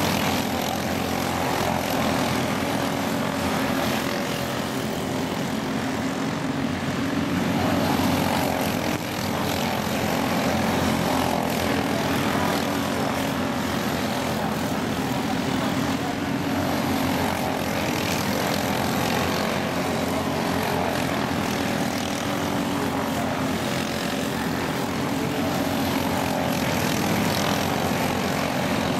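Quarter midget race cars' small single-cylinder engines buzzing steadily at racing speed, the engine note swelling and fading every few seconds as the cars come round the oval.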